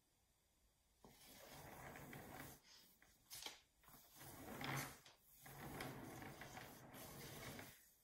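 Swivel TV turntable being turned by hand under a plaster sculpture: a faint grinding rumble from the rotating base. It starts about a second in and goes on in stretches with short breaks.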